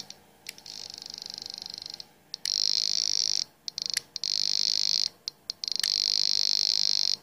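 A homemade sensitive conductance-and-resistance detector gives a high buzzing tone from its speaker. The tone is fainter for the first couple of seconds, then grows louder and cuts in and out several times as electrodes are pressed against a plastic breadboard's metal rails. The change in tone shows stray conduction between the rails through the breadboard.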